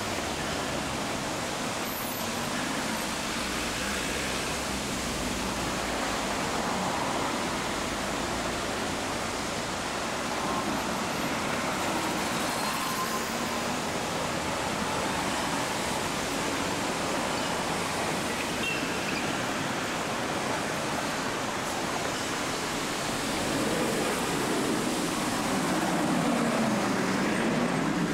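Steady noise of city road traffic, cars and vans driving past. Near the end it grows louder as a car's engine passes close by.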